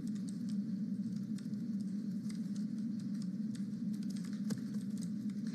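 Scattered light clicks of computer keyboard keys and a mouse, over a steady low hum.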